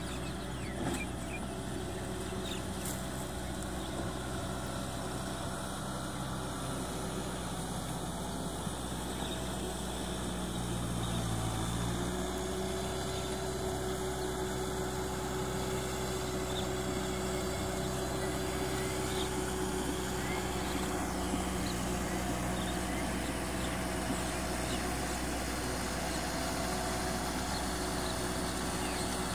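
Kubota M6040SU tractor's diesel engine running steadily as it works through paddy mud. Its note shifts about eleven seconds in and runs a little louder after that.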